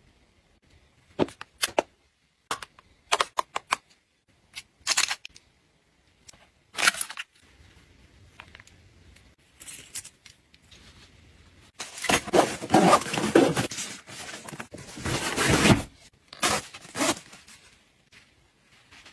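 Small plastic cosmetic cases being handled, with a series of sharp clicks and taps. After a pause come about four seconds of rustling and scraping from a fabric pouch, then two more taps.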